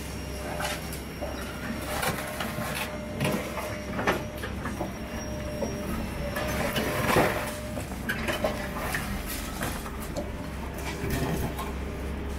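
Hydraulic concrete crusher on a demolition excavator biting through a reinforced-concrete slab: irregular cracking and crunching of breaking concrete over the steady drone of the excavator's engine and hydraulics, with the loudest crunch about seven seconds in.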